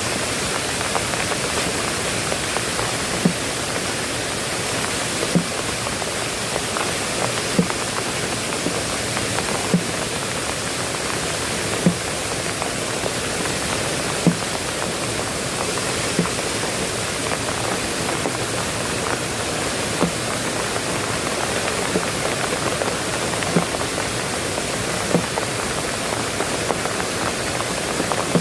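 Steady heavy rain hiss, with a short low thud recurring about every two seconds.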